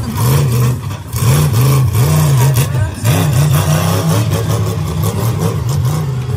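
Monster truck's engine revving as the truck drives, its pitch rising and falling again and again.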